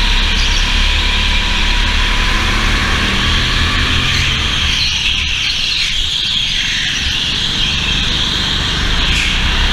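Go-kart engine running continuously at racing speed, heard on board the kart, with a steady low drone and a constant hiss of noise over it.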